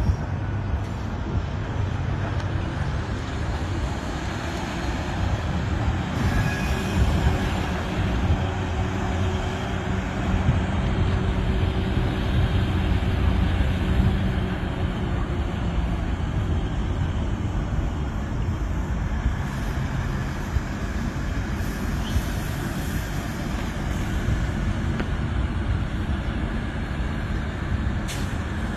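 Diesel switching locomotive shoving a long cut of tank cars and hoppers, with the steady rumble of the engine and the cars rolling over the rails.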